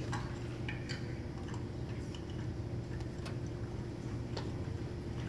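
Scattered faint clicks and light taps from small magic props being handled at a table, over a steady low hum.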